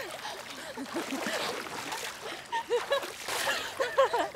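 Teenage girls laughing and making short playful vocal sounds while splashing in a swimming pool, with water sloshing and splashing around them.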